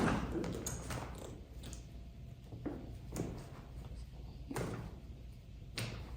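A chiropractor's hands working a patient's foot during a foot adjustment, giving a string of short pops and knocks, the loudest right at the start and about seven fainter ones spread through the rest.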